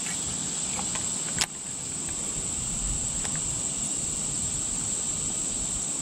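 Insect chorus chirring steadily at one high pitch, over a low outdoor hiss. A single sharp click comes about a second and a half in.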